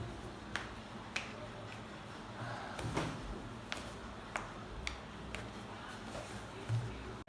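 A series of sharp clicks, about seven, spaced irregularly roughly half a second to a second apart, followed by a duller low thump near the end.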